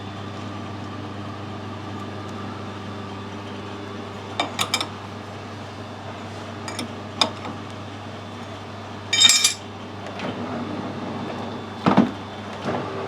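Small metal parts being handled and set down on a workbench: three quick clicks, a single click, then a loud ringing metallic clink and a sharp knock near the end, over a steady low machine hum.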